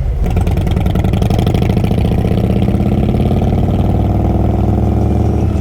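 Harley-Davidson V-twin motorcycle engine running at a steady pace, its pitch rising a little through the middle.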